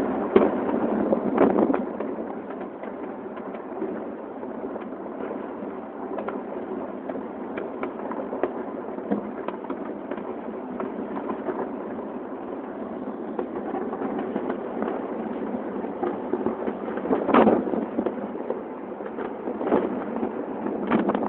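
Many fireworks going off at once: a constant crackle and popping, with louder clusters of bangs about a second in, around seventeen seconds, and again near the end.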